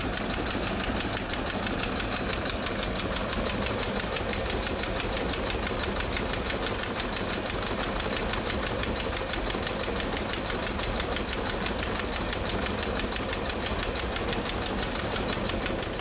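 An engine running steadily with a fast, even knocking beat, cutting off suddenly at the end.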